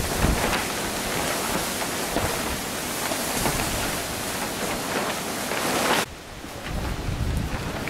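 Storm wind blowing through a boat shelter's plastic sheeting: a loud, dense hiss with repeated flaps of the sheeting. About six seconds in it cuts to lower, gusty wind buffeting the microphone.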